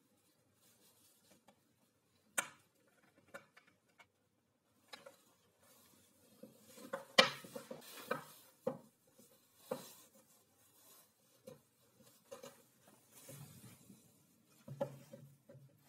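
A plywood block and a steel washer being handled on a wooden workbench: scattered knocks and light clinks as they are set down and picked up. The sharpest knocks come about two and a half seconds in and about seven seconds in.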